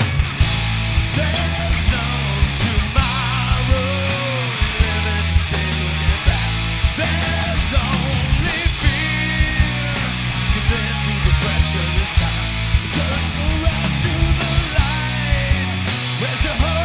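Live rock band playing a song: electric guitars, bass guitar and a drum kit with a steady beat, and a male lead singer.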